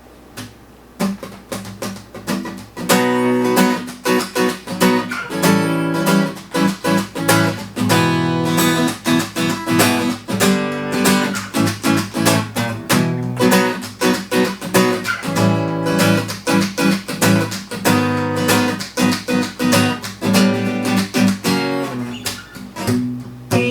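Acoustic guitar strummed in a steady rhythm, playing a song's instrumental intro: a few separate strokes about a second in, then full rhythmic strumming from about three seconds.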